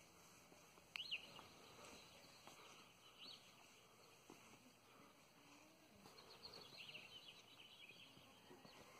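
Near silence: faint outdoor room tone with a few distant bird chirps, one about a second in, another near three seconds and a short run of them around six to seven seconds.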